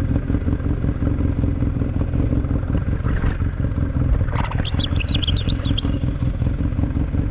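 Arctic Cat Wildcat side-by-side's engine running steadily while under way, a dense low drone. About four and a half seconds in, a quick cluster of high squeaks or chirps sounds over it for a couple of seconds.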